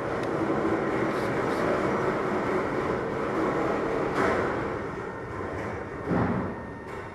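Steady rushing noise of a blower or motor, easing off about six seconds in, with a knock as it tails away.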